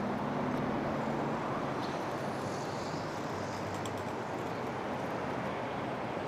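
Steady outdoor noise, with a low engine-like hum that fades out about a second and a half in.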